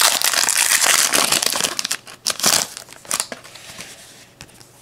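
Trading-card pack wrapper being torn open and pulled off the cards, crinkling loudly for about two seconds, then a few short crinkles before it goes quieter.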